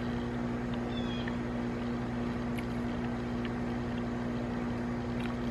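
Steady mechanical hum from a running motor, holding one constant pitch with a low rumble beneath, and a few faint ticks over it.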